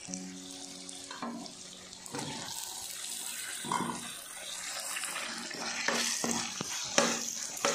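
Chopped tomatoes sizzling in hot oil with fried onion and ginger-garlic paste in a steel karahi, the hiss growing louder from about two seconds in. A metal spoon knocks and scrapes against the pan several times as it stirs.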